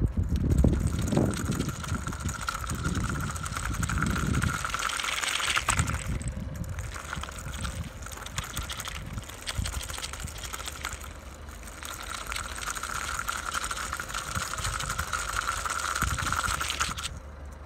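Small electric motor of a homemade wooden RC buggy whining as it drives, with the wheels hissing and crunching over wet, gritty asphalt. The whine drops out briefly a couple of times and stops near the end, and there is a low rumble in the first four seconds.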